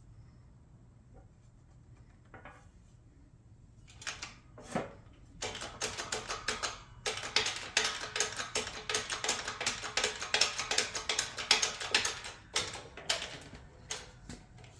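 Quiet at first, then about four seconds in a rapid, irregular run of sharp metallic clicks and clatter that lasts most of the rest, as a thin sheet-metal panel and metal blocks are shifted and fitted into a press.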